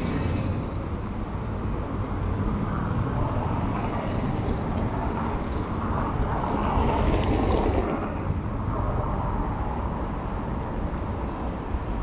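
City street traffic noise, heard steadily with a low rumble, swelling slightly around six to eight seconds in.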